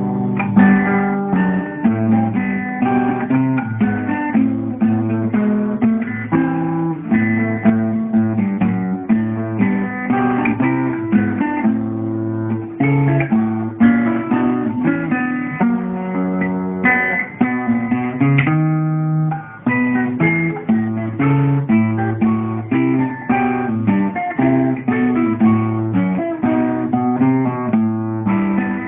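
Solo acoustic guitar playing a classical piece: a steady run of plucked notes over bass notes, with one chord held briefly about two-thirds of the way through. The recording is of poor quality and sounds dull.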